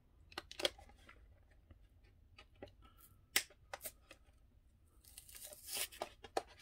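Plastic blister bubble being pried and peeled off an action figure's glued cardboard backing card: scattered sharp clicks and crackles, then a stretch of tearing and crinkling about five seconds in.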